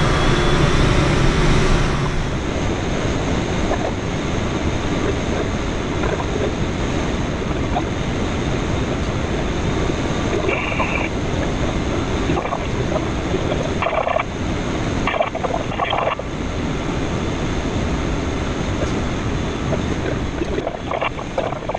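Steady rushing airflow noise in a K13 glider's cockpit, with a few brief higher chirps around the middle.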